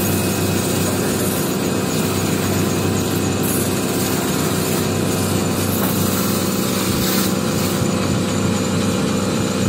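Electric shoe-polishing machine's motor running steadily, its spinning buffing wheel working wax into a leather shoe held lightly against it.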